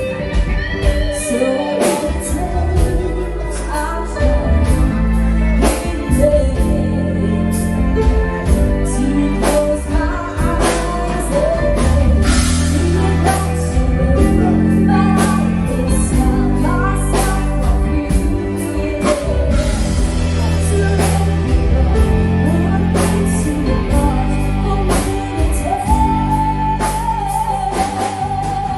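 A song: singing over a band with drums keeping a steady beat and a heavy bass line. A long held sung note comes near the end.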